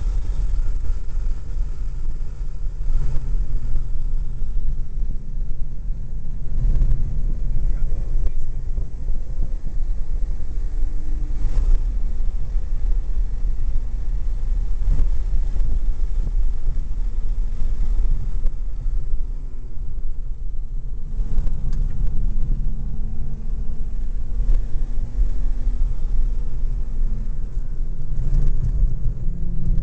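Wind buffeting a door-mounted camera's microphone over the engine of a supercharged BMW E46 M3 inline-six running at steady moderate speed, its pitch rising near the end as the car accelerates.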